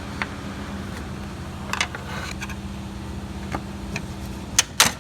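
Plastic retaining clips clicking and snapping as they are pried free, a few light clicks and then two sharp snaps near the end, over a steady low hum.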